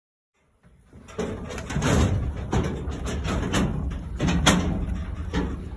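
Ram lambs jostling in a livestock trailer: hooves knocking and scraping on the trailer floor, with irregular knocks and rattles against its sides. It starts about half a second in.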